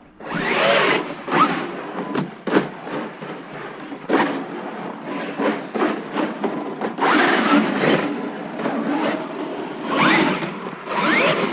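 Electric RC monster trucks' brushless motors whining, rising in pitch again and again as they accelerate, over a steady rush of tyres churning through snow, with a few sharp knocks.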